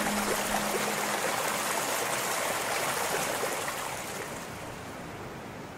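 Steady rushing of flowing water, like a stream, that slowly fades out. The last held note of the song dies away about a second in.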